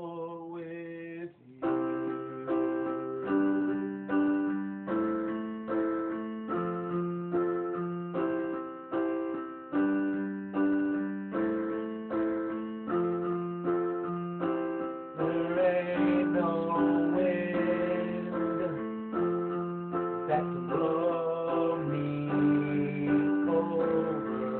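Solo piano playing an instrumental passage of steady repeated chords, a little faster than one a second. It grows fuller and louder about fifteen seconds in.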